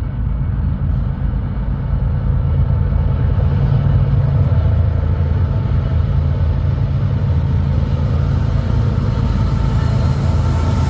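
Freight train rolling past, a loud steady low rumble.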